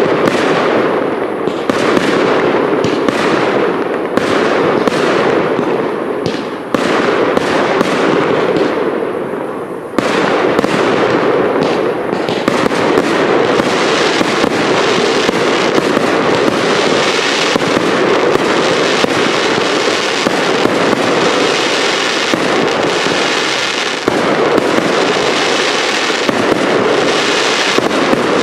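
Fireworks cake batteries firing in quick succession: a string of sharp bangs and booms, which thickens about twelve seconds in into a continuous, dense barrage with a sizzling crackle.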